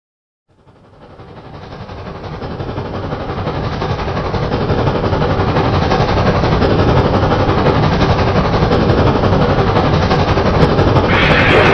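Steam train sound effect fading in from silence and growing louder: a dense, rapidly pulsing chuffing and clattering rumble that holds steady once loud, with a brighter hiss joining near the end.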